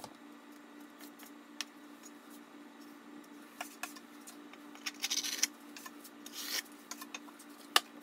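V-notch trowel spreading and combing pre-mixed tile adhesive on a wall, in short scraping strokes with light clicks and one sharper click near the end.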